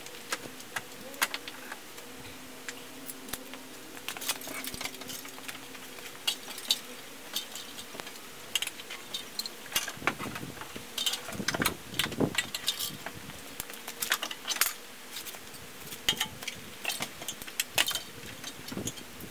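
Irregular metallic clinks and knocks from the engine hoist's chain and the hanging V6 engine bumping metal parts as it is guided down into the engine bay, over a faint steady hum.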